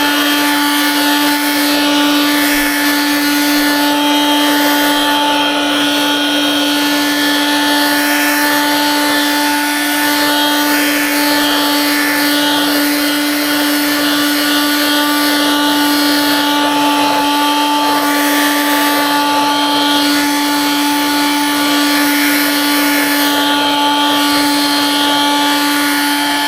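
Red Dirt Devil Handivac hand vacuum running steadily at a single even pitch while vacuuming a mattress, a continuous motor hum with a whirring airflow hiss.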